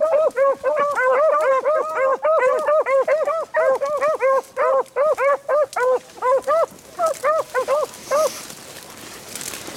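Beagles baying in a fast run of short, high yelps, overlapping in places, which hounds give while running a rabbit's scent trail. The yelping stops about eight seconds in, and brush rustling follows.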